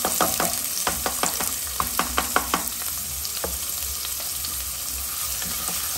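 Chopped onion frying in hot oil in a pot: a steady sizzle, with a string of sharp crackles and taps over the first two or three seconds as the onion goes in.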